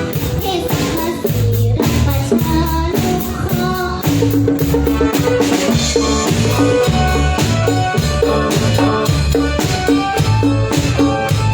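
A live band playing a song during a sound check, with a drum kit keeping a steady beat under the other instruments.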